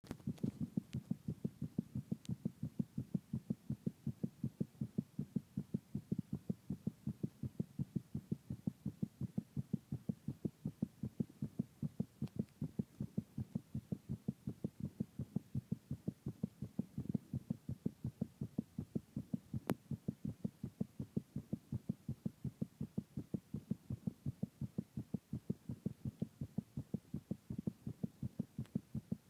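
Human heartbeat of a man who has been drinking alcohol: a steady, unbroken run of low lub-dub beats.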